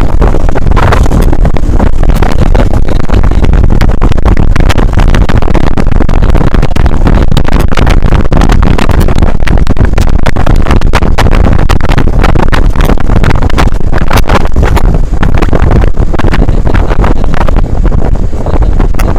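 Loud, constant wind buffeting on the microphone over the noise of a vehicle travelling fast, with no siren in it.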